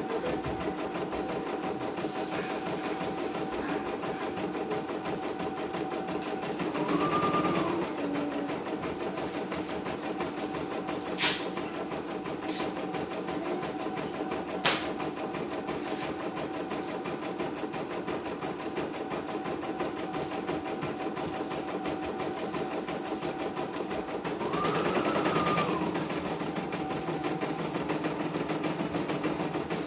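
CNY computerized embroidery machine stitching a design into hooped fabric, its needle running in a fast, steady rhythm over a motor hum. Twice a brief rising-then-falling whine comes over it, and there is a sharp click about eleven seconds in.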